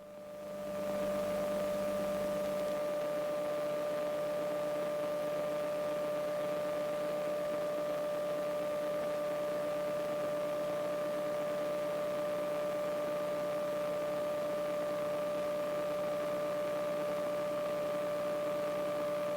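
Steady, unchanging hum made of a few fixed tones, strongest in the midrange: the KR-2S's cockpit noise as carried through the camera's intercom audio hookup. It swells in over the first second after the speech stops.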